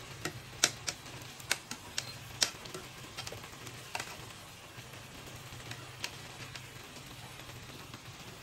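Kitchen tongs clicking and tapping against the pan and the chicken as the pieces are turned, in sharp irregular clicks that come mostly in the first few seconds. Under them, chicken simmering in the pan with a faint sizzle, and a low steady hum.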